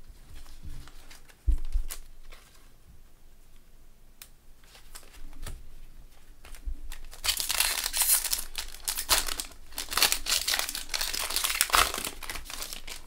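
Foil wrapper of a Panini Prestige football card pack crinkling as it is handled and torn open, densest in the second half. A light knock about a second and a half in.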